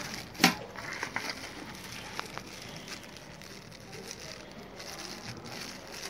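Small plastic packets of metal BNC connectors crinkling and rustling as they are handled, with a sharp click about half a second in and a few lighter clicks after it.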